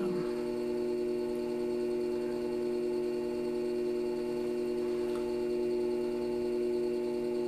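Electric pottery wheel's motor humming at a steady speed while wet clay is shaped on the spinning wheel head.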